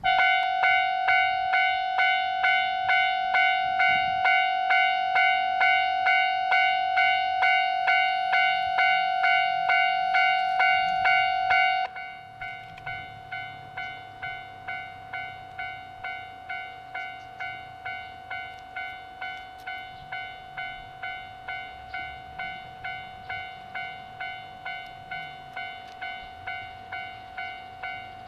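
Railway level crossing alarm bell starting up and ringing in a steady rhythm of about two strikes a second. About twelve seconds in it drops suddenly to a quieter level and keeps ringing.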